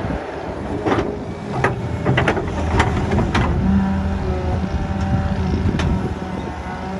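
Solar 130 excavator's diesel engine running steadily under digging load, its note growing stronger about halfway through, with a run of sharp knocks in the first half and another near the end.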